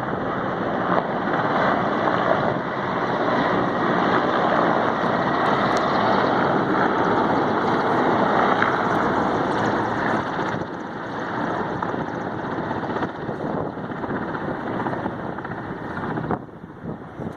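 Helicopter flying past, a steady rushing engine-and-rotor noise that is loudest for the first ten seconds, then eases and drops away sharply near the end.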